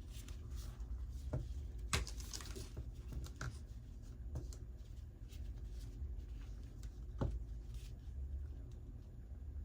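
Light knocks and clicks of paint cups and bottles being handled while paint is layered into a pouring cup, a few scattered strokes with the sharpest about two seconds in and again near seven seconds, over a low steady hum.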